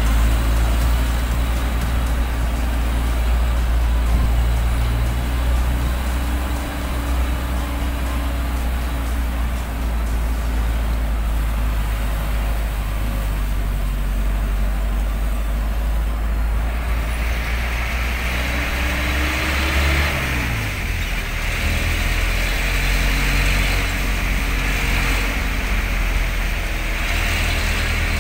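Vehicle engine running while driving along a road, over a heavy low rumble. Its pitch shifts with speed and drops sharply about twenty seconds in. A steady hiss joins about seventeen seconds in.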